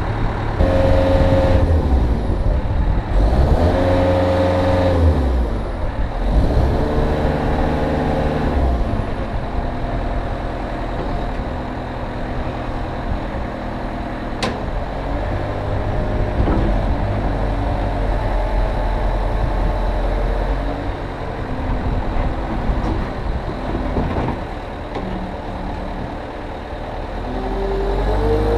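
Cat 236B3 skid steer's diesel engine running under operation, its speed swelling up and dropping back about three times in the first nine seconds, then running steadier before climbing again at the end. A single short tick about halfway through.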